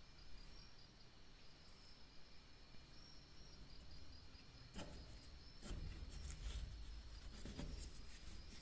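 Quiet handling of a dagger and its handle spacers on a wooden workbench: a few light clicks and soft low knocks in the second half, the strongest about six seconds in, as a spacer plate is slid onto the threaded tang against the guard. A faint pulsing high tone runs beneath.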